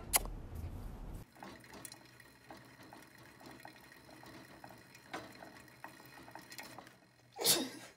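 Small hamster running in a plastic exercise wheel: faint, irregular light clicking and rattling from the spinning wheel, with one brief louder noise near the end.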